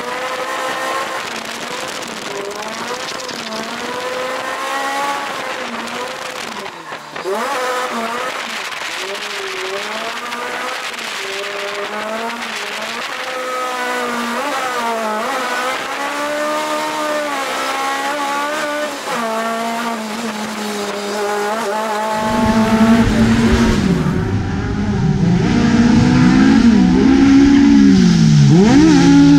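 Toyota AE86's carburetted engine revving up and down over and over as the car drifts through wet corners, heard from inside the cabin. About 22 s in, the sound changes to a louder, fuller engine note with deep low end, heard from the roadside, rising as the car comes closer.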